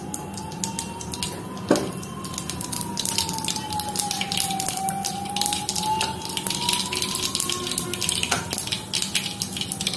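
Mustard seeds crackling and popping in hot oil in a nonstick frying pan as they are tempered: a dense run of small sharp pops, with a louder crack just under two seconds in and another near the end. Behind it a faint tone slowly rises and falls in pitch.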